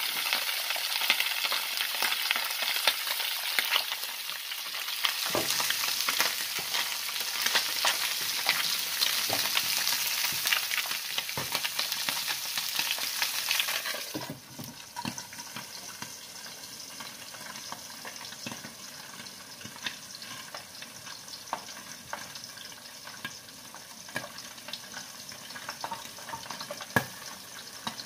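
Mackerel fillets frying in oil in a pan, a steady sizzle thick with crackles. About halfway through it drops suddenly to a fainter sizzle, with occasional light clicks and knocks.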